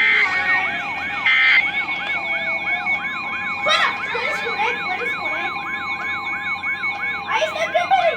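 Emergency alert audio: two short bursts of digital data tones, then steady electronic alert tones with a rapid electronic siren sweeping up and down about three times a second over them.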